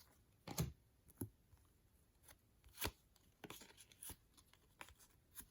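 Trading cards being handled and flipped one by one: a few soft, irregular card flicks and slides.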